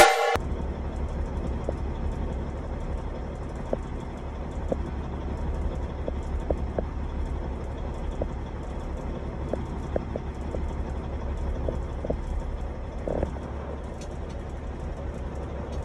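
Heavy diesel truck engine running steadily, a low rumble heard from inside the semi's cab, with a few faint ticks.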